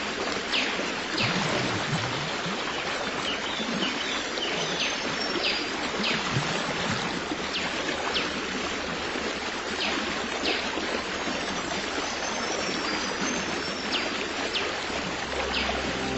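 Running stream water, a steady rushing and trickling, with brief high chirps or plinks every second or so. Soft music tones come in near the end.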